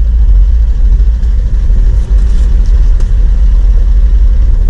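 Kawasaki Mule 4010 utility vehicle driving along a dirt trail, its engine running steadily with a heavy low rumble.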